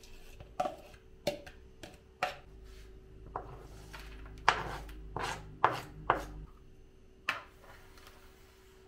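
A kitchen knife knocking on a cutting board, about ten irregular knocks spread over several seconds, while onions are chopped and added to a minced-meat pide filling.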